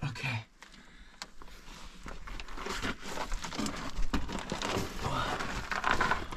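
Scuffing, scraping and crunching of people crawling over gravel and rock in a narrow mine tunnel, with the camera knocking and rubbing as it moves; the rustle grows busier after the first couple of seconds.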